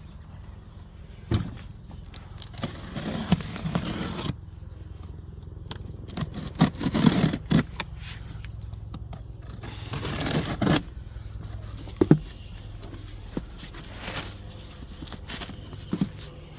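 Cardboard shipping box being opened and handled: irregular scraping and rustling, with a few sharp knocks.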